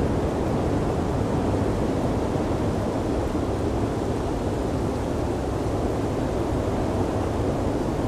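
Blizzard wind: a steady, low rushing noise that does not let up.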